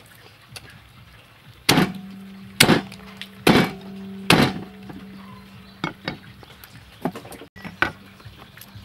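Cleaver chopping through a whole raw duck on a thick wooden chopping block: four heavy strikes about a second apart, each with a short ring, then a few lighter knocks.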